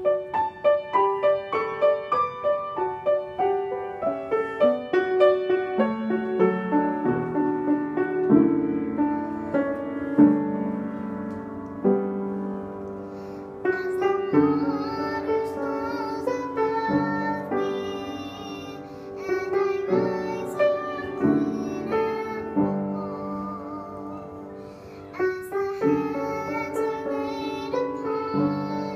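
Upright piano playing a song alone for about the first half, then a young girl's voice singing along with the piano from about halfway through.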